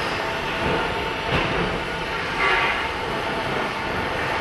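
Gas welding torch flame hissing steadily while a filler rod is fed into the joint.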